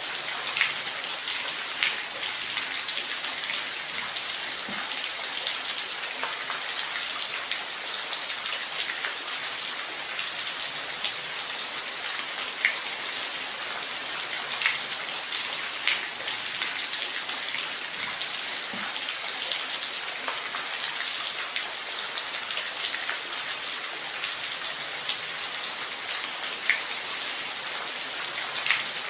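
Steady rain, a continuous hiss with scattered louder drops ticking every second or two.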